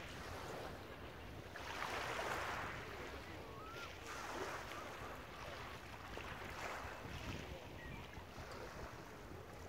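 Small waves washing up a shingle beach, a soft swell of surf every couple of seconds, over a low rumble of wind on the microphone.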